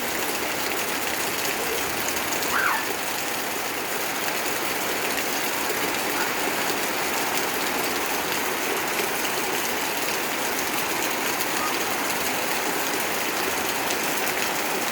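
Steady rain falling, a continuous even hiss, with one short call about two and a half seconds in.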